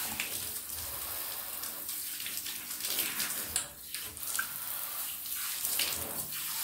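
Water running from a handheld shower head onto a small dog in a bathtub, a steady hiss, as the shampoo is rinsed off; it is briefly fainter about four seconds in.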